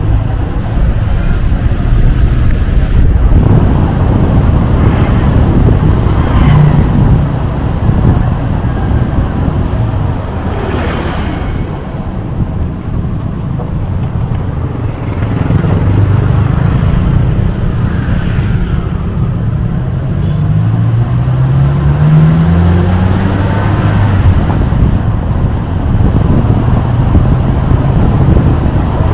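Engine of the vehicle carrying the camera running as it drives along a narrow road, with wind noise. The engine's pitch climbs several times in the second half as it speeds up.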